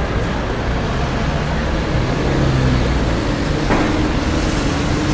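Road traffic running steadily, with a faint short knock a little after halfway.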